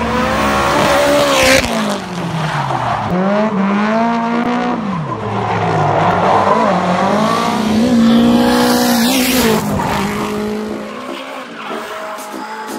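Drift cars sliding through corners: engines revving up and down over and over as the drivers work the throttle, with tyres squealing throughout. The sound changes abruptly a few times where clips are cut together.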